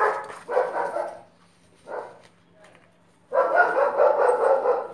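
A dog barking repeatedly: a few short barks, then a longer run of barks starting about three seconds in.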